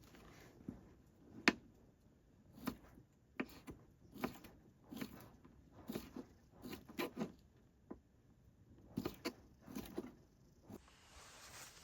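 Light, irregular knocks and taps of cooking utensils being handled, about one every half second to a second, stopping shortly before the end.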